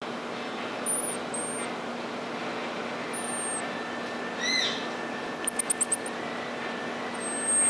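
Infant pygmy marmoset giving very high, thin whistling calls. There are a few short whistles in the first half, a lower chirp that slides downward near the middle, a quick run of five sharp chirps about a second later, and a longer whistle near the end. A steady low hum runs underneath.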